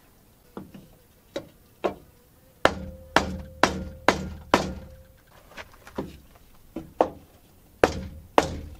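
Hammer blows knocking a wooden 2x6 support beam sideways to shift it over. A few light taps, then five hard blows about two a second, more light taps, and two hard blows near the end. A faint ring hangs after the hard blows.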